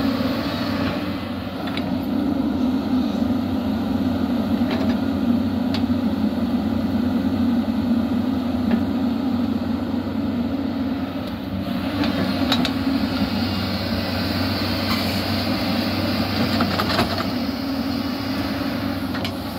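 Hyundai 215L crawler excavator's diesel engine running steadily as it digs and dumps heavy mud soil, with a few light knocks scattered through.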